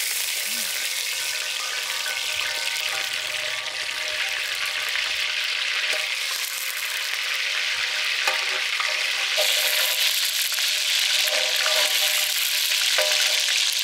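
Homemade butter frying and sizzling in hot oil on a tawa, a steady dense hiss that grows stronger a little past the middle.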